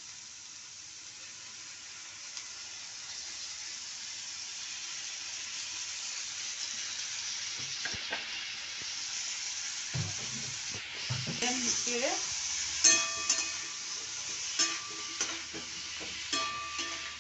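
Hot oil sizzling under raw potato chunks, tomato and spices in a metal kadai, getting gradually louder. From about ten seconds in, a metal spatula stirs and scrapes against the pan, with ringing clinks.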